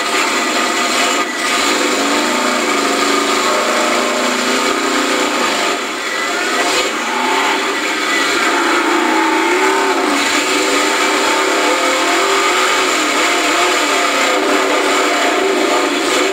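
A 4x4 mud-bog truck's engine revving hard in the mud pit, its pitch rising and falling again and again.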